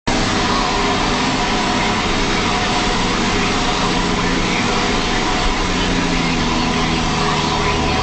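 John Deere 6920S tractor's diesel engine running steadily under load, pulling a five-furrow Dowdeswell plough.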